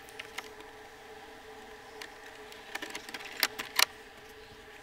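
Clicks and knocks from handling a hard plastic cargo case and its mounting hardware: a few light clicks about two to three seconds in, then two sharper knocks just before four seconds, over a steady hum.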